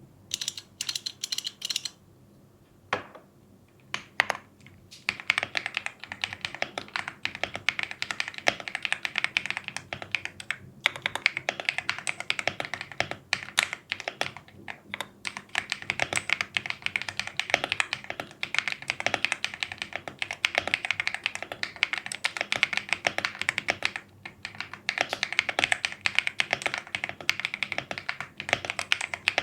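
Typing on a Leobog Hi98 mechanical keyboard with White Dragon switches, stock keycaps and full foam: a steady run of fast keystrokes after a few separate presses and a short pause at the start.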